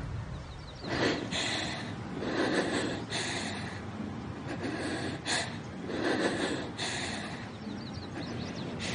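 A young woman breathing hard and unevenly: a string of short, sharp breaths in and out, over a low steady background hum.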